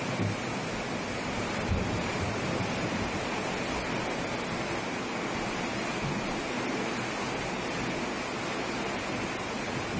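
Floodwater gushing into a house: a steady, unbroken rush of water.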